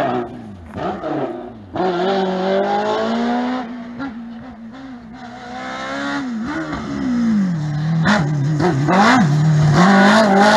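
Racing car engines on a hill-climb slalom, revving up and dropping back repeatedly as a car brakes and accelerates through the cone chicanes. It grows louder over the last few seconds as the car climbs toward the listener.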